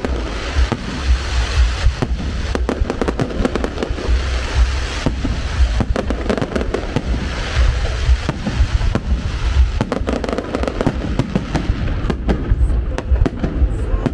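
Fireworks display: many sharp bangs and crackles of bursting shells in quick succession, over a low rumble.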